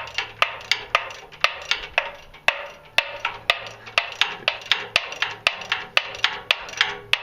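Hand tool working on metal on a locomotive engine: a steady run of sharp metallic clicks, about four a second, like a ratchet or light tapping.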